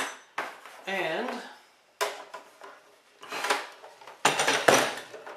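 Sharp metallic clinks and knocks from the miter saw's small onboard 10 mm wrench being handled against the saw, several spaced strikes with the loudest near the end.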